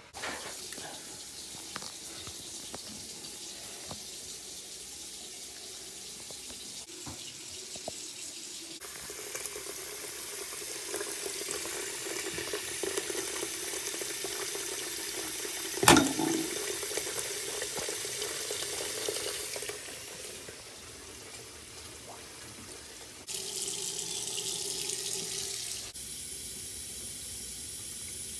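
Tap water running into a sink and down its drain, a steady splashing hiss, poured repeatedly to test the drain for a leak. A single sharp knock stands out about two-thirds of the way through.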